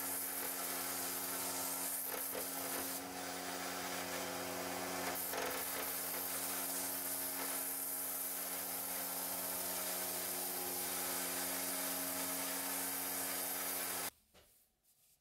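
Small belt grinder running, its abrasive belt grinding the steel edge of a machete blade: a steady motor hum under a continuous hissing scrape. It cuts off suddenly about a second before the end.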